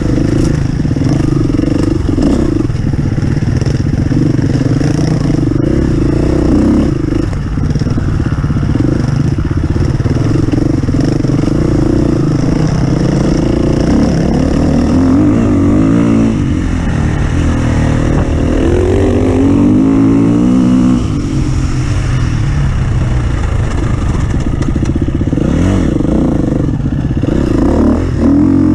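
Offroad racing vehicle's engine running hard and loud, with the revs dropping and climbing again several times in the middle stretch as it works through the course, over a clatter of the vehicle on rough ground.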